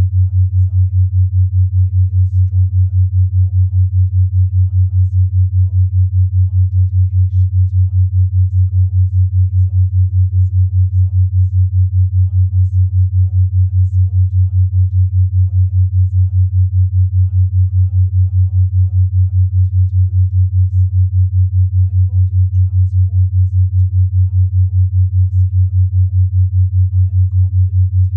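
Binaural-beat tone: a single low, pure tone that pulses evenly about five times a second, as a 5 Hz binaural beat does when its two ear tones mix.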